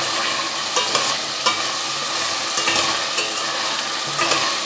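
Carrot and zucchini pieces sizzling in oil in a stainless steel pot as they are stirred with a wooden spoon, the spoon scraping and knocking against the pot several times over a steady hiss.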